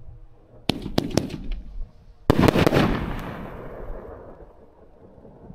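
A 500-gram fireworks cake firing: a few sharp pops about a second in, then a loud boom a little past two seconds in that rolls away over the next couple of seconds.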